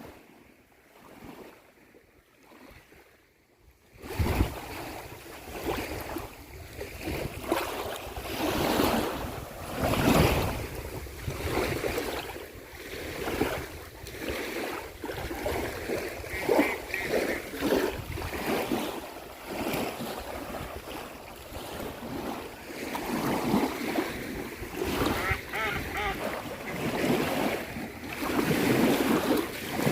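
Waves washing onto a shore in uneven swells, with wind buffeting the microphone. The wash starts suddenly about four seconds in, after a brief quiet.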